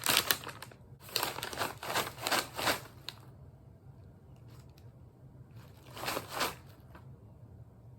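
Plastic snack bag of popcorn crinkling and rustling in a quick run of bursts over the first three seconds, then once more briefly about six seconds in.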